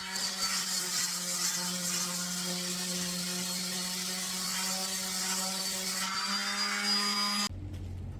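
An electric power tool running steadily at constant speed with a whining hum and a hiss of cutting or abrading wood. It cuts off suddenly near the end.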